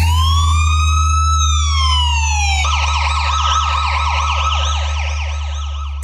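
Police car siren: one long wail rising and then falling, which switches about two and a half seconds in to a fast, rapidly repeating yelp. A steady low rumble runs underneath.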